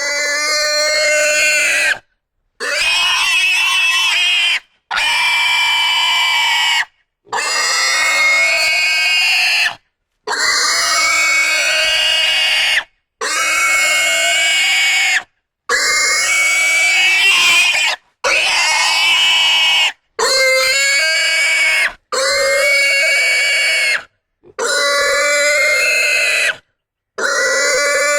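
Domestic pigs squealing in a string of about a dozen loud, high-pitched screams. Each lasts about two seconds, and they are separated by brief dead-silent gaps.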